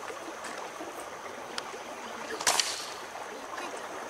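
Creek water running steadily, with two sharp clacks of stones knocking together on the cobble bar. The second clack, about two and a half seconds in, is the louder.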